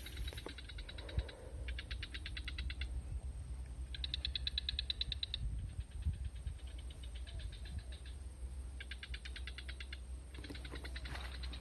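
A small animal calling in repeated bouts of rapid clicks, each bout lasting about a second and coming every couple of seconds, over a steady low hum.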